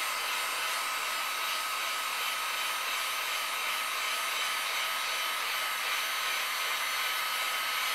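Heat gun blowing steadily, a rush of hot air with a thin high whine in it, reflowing the solder under a PS3 motherboard's GPU and CPU.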